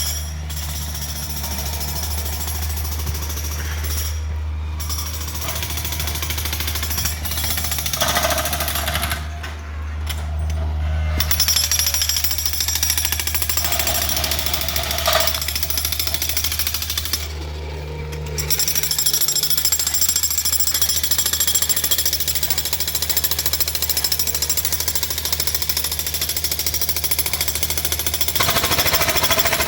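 Jackhammer breaking up old concrete, hammering continuously over a steady low hum.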